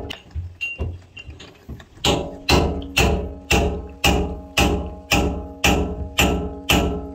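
A hammer striking metal, each blow leaving a short ringing tone: a few lighter taps in the first two seconds, then steady heavy blows about two a second.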